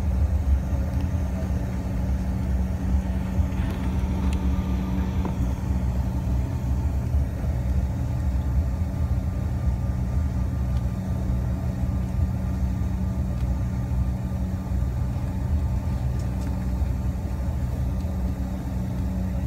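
Steady rumble and low hum of a jet airliner's engines and wheels heard from inside the cabin while the plane taxis, with no rise in power.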